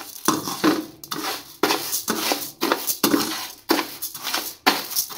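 Metal spatula stirring dry parboiled rice grains around a steel parat in repeated strokes, about two to three a second, the grains rattling and scraping on the metal. The jingling rattle (khankhanahat) shows the grains have dried out and their moisture is gone.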